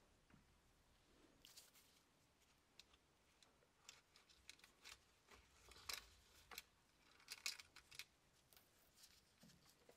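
Faint handling sounds of gloved hands fitting a leather chin strap to a helmet's metal strap loop and liner: scattered small clicks and rustles, the loudest about six and seven and a half seconds in.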